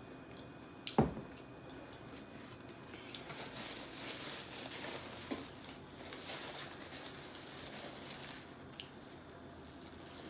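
Close-miked eating sounds: wet chewing and squishing, with one sharp knock about a second in.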